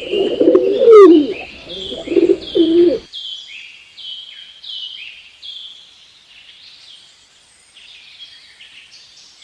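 Dove cooing for about the first three seconds, loudest about a second in, over a steady run of high, falling bird chirps that carry on after the cooing stops.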